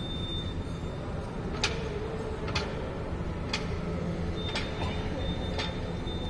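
Five sharp ticks, evenly spaced about a second apart, over a steady low hum.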